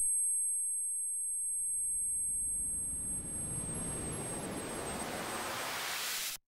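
Designed film soundtrack: thin high-pitched ringing tones that fade away over the first few seconds, while a rushing noise swell builds and grows brighter. Near the end it cuts off suddenly into silence.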